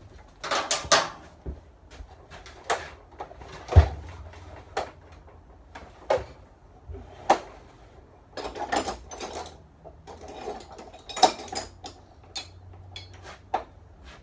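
Irregular metallic clicks and knocks of hand tools and engine parts being handled, some in short rattling clusters, with one sharp knock about four seconds in.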